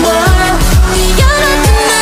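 Electronic K-pop dance track with a heavy, steady bass beat and layered synth lines.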